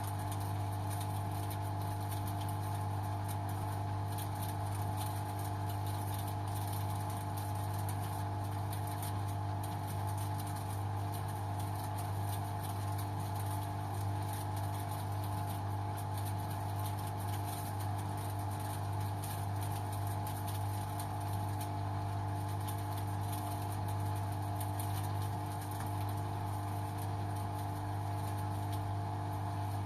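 LG washing machine running steadily on its Synthetic 30 programme: an even low hum with several held higher tones above it.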